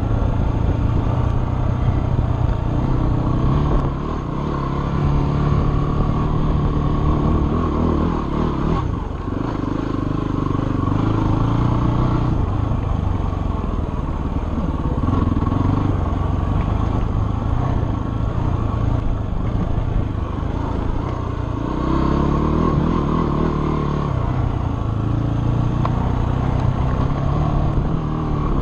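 Dirt bike engine running under load on a trail ride, its note climbing and dropping repeatedly as the throttle is opened and closed.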